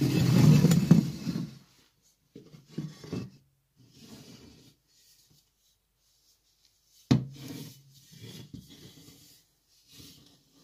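German M40/M42 steel helmet, stripped to bare metal, handled and turned on an OSB board: the shell and hands scrape and rub against the wood in short bouts, loudest in the first two seconds. About seven seconds in, the helmet knocks sharply once and rings briefly.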